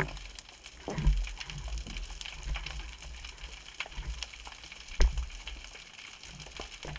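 Underwater ambience heard through a camera housing: a steady scatter of faint crackles and clicks, with low muffled thumps of moving water. One sharper click comes about five seconds in.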